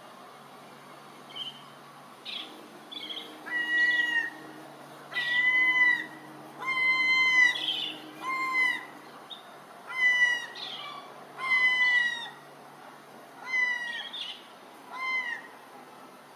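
Herring gulls calling: a series of about eight drawn-out, clear calls, each under a second long and dropping in pitch at the end, with a few short high peeps in between.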